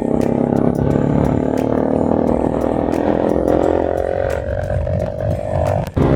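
Bajaj Pulsar NS200's single-cylinder engine through an aftermarket Akrapovic-style slip-on exhaust with dB killer, pulling under load with its pitch rising steadily. The sound breaks off briefly near the end, then carries on at a steady pitch. Wind buffets the microphone.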